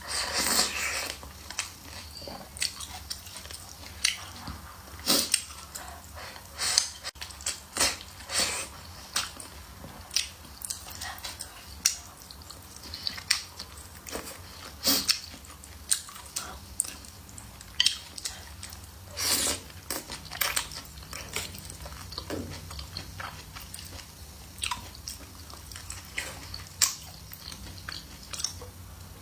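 A person chewing and biting food close to the microphone, with irregular crisp crunches about once or twice a second.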